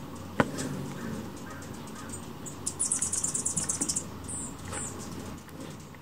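Hummingbirds squabbling over a nectar feeder: a rapid, high-pitched chattering run lasting about a second, starting a little before halfway, followed by a couple of short high chips. A single sharp click sounds near the start.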